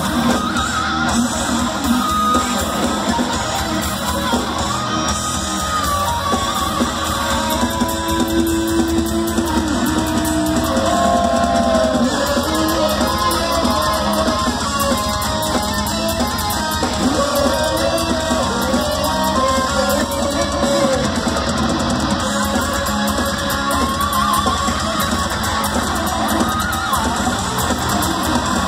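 Live thrash metal band playing at full volume: distorted electric guitars over a drum kit, with a lead guitar line sliding and bending between notes.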